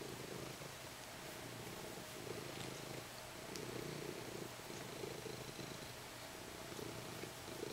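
Domestic cat purring steadily while being stroked, the purr swelling and easing in a slow, even rhythm.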